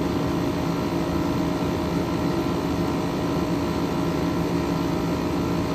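2011 Frigidaire 12,000 BTU window air conditioner running: its LG rotary compressor and fan give a steady hum with several fixed tones over an even whoosh of air. The owner finds that this rotary compressor sounds like a reciprocating compressor.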